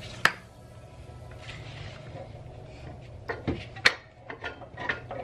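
Tools and parts being handled during CV axle and suspension work: one sharp clack just after the start, then a run of lighter metal clicks and knocks about three to five seconds in, over a steady low hum.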